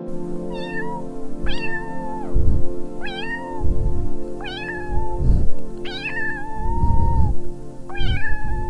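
A cat meowing about six times in high, short calls, one held longer about two-thirds through, over steady background music, with low thumps between the calls.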